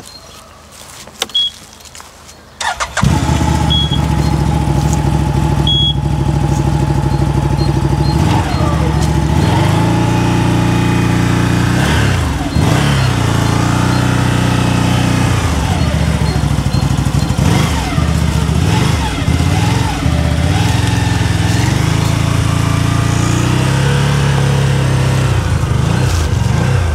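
CFMOTO Gladiator X1000 ATV's V-twin engine started with the electric starter, catching about three seconds in after a few quiet clicks, then running at idle. From about eight seconds on it is revved again and again with short throttle blips that rise and fall in pitch.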